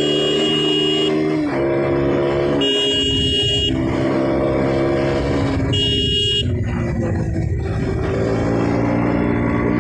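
KTM RC 200's single-cylinder engine pulling through the gears while riding, its pitch climbing and then stepping down at each shift. A high beeping horn tone sounds three times over it, at the start, about three seconds in and about six seconds in.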